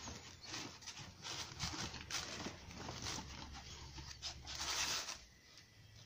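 Hands handling a nylon tactical first-aid pouch: irregular rustling and scraping of fabric and webbing as items are pushed into its loops and compartments. The rustling is loudest about five seconds in.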